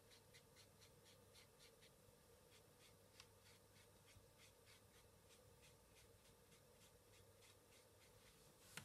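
Very faint, quick strokes of a paintbrush and fingers on paper, about three a second, with a small click about three seconds in.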